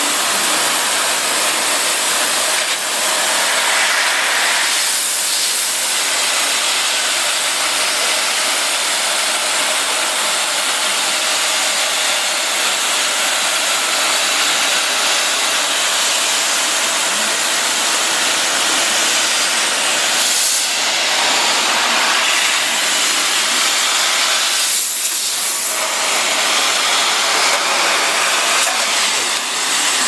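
Water spray jets hissing steadily inside a Dolphin commercial conveyor dishwasher as they wash racks of stainless steel compartment trays.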